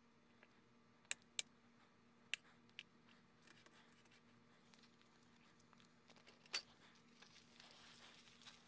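Faint light clicks of a metal table knife touching a ceramic plate while spreading whipped cream on cake, five in all over the first seven seconds. A soft crinkly rustle comes in near the end, under a steady low hum.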